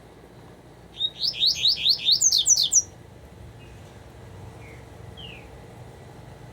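Double-collared seedeater (coleiro) singing a 'tuitui'-type phrase: a fast, loud run of about ten quick rising whistled notes lasting about two seconds, starting about a second in. A few faint short notes follow.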